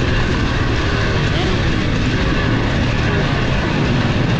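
Enduro dirt bike engine heard from the rider's on-bike camera, its pitch rising and falling as the throttle is worked over grassy ground, with other bikes running ahead.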